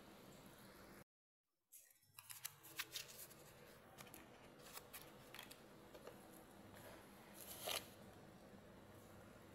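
Faint, irregular ticks and pops of a coconut-milk curry simmering in a pan, over a low hiss. The sound cuts out completely for a moment about a second in, and the ticks come in a small cluster just after, then sparsely, with one louder pop near the end.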